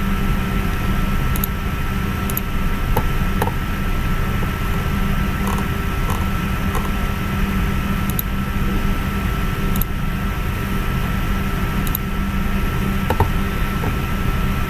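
Steady background hum and hiss with a faint constant whine, with a few faint clicks scattered through.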